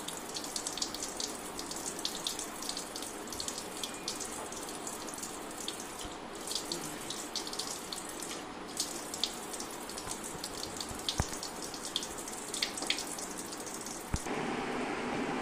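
A kitchen tap running into a sink, with a steady stream and irregular splashing. Near the end it cuts off suddenly and gives way to a steady low hiss.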